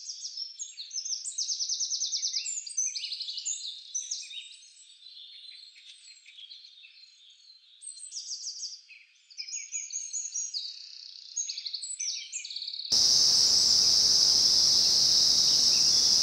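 Small birds chirping, many in quick trilled runs of notes. About thirteen seconds in this gives way abruptly to a steady, high insect drone, crickets, over a hiss.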